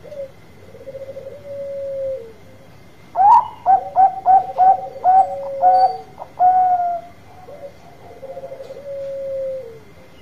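Zebra dove (perkutut Bangkok) cooing: a soft rolling trill that runs into a held, falling note, then a louder run of about ten short, clipped coos, and another soft rolling coo with a falling tail near the end.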